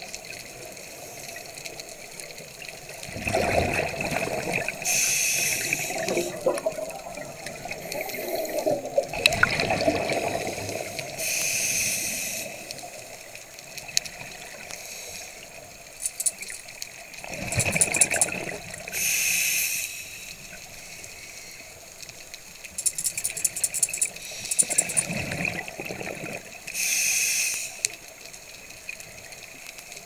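Scuba diver breathing through a regulator underwater: four breaths about seven seconds apart, each a rush of bubbling exhaled air and the hiss of the regulator on the inhale.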